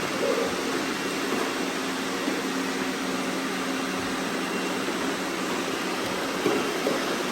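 Robot vacuum cleaners running: a steady motor whir with a low hum underneath.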